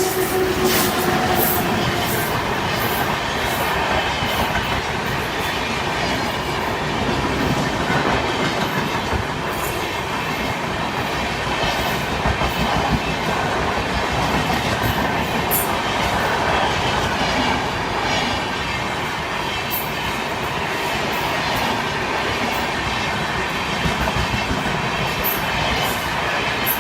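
Rajdhani Express passenger train rushing past at speed, a steady loud rush of coaches with wheels clattering over rail joints. The horn's last note dies away about a second in.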